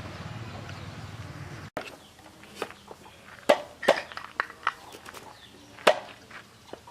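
A steady low rumble that cuts off abruptly about two seconds in, followed by a series of irregular sharp knocks and clicks.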